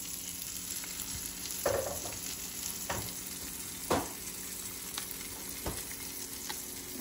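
Pork steak sizzling in hot oil in a nonstick frying pan, a steady frying hiss, with a few light knocks along the way.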